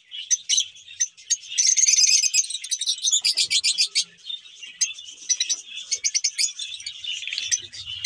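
A flock of caged lovebirds chattering: many rapid, high-pitched chirps overlapping, busiest a second or two in.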